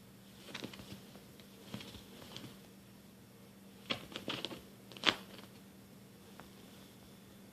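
Kitten scrabbling and pawing on a fabric couch: short clusters of rustling and scratching, the sharpest about five seconds in, over a faint steady hum.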